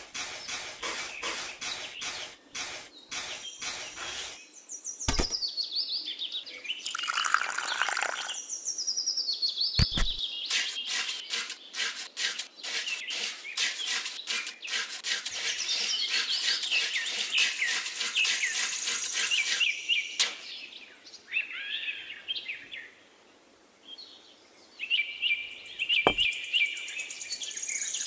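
Small birds chirping and singing, over quick repeated scraping and clicking of a small metal spoon stirring cement in a steel bowl, with a few dull knocks.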